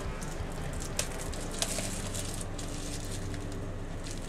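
A few light clicks and soft rustles of hand handling, over a steady low hum of room noise.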